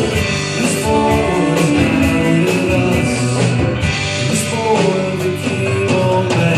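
A live band playing an upbeat song with a steady drum beat and guitar, between sung lines.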